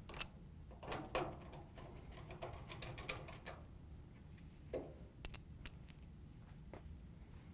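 Quarter-inch nut driver turning screws into a dryer's sheet-metal control board panel: faint, scattered clicks and metal taps with some scraping, the sharpest tick near the start and a few isolated ticks later.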